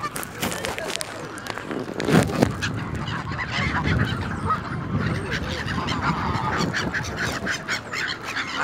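A flock of geese honking: many short calls overlapping without pause, the loudest a little over two seconds in.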